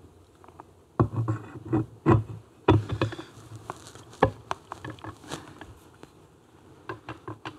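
Irregular small metallic clicks and light knocks as a clutch hub is worked by hand onto its shaft and Woodruff key in a Triumph Tiger Cub engine's aluminium primary case.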